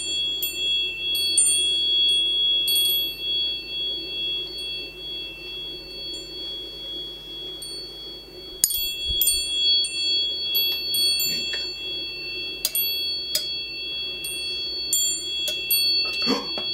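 Sekiei quartz-glass door chime ringing: its glass pieces strike together in clusters of clinks, leaving a few high, clear tones sustaining between strikes. A fresh, louder round of strikes comes about halfway through.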